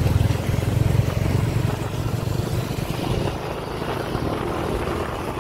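Motorcycle riding through road traffic, heard from the bike itself: a steady low rumble of engine and road noise.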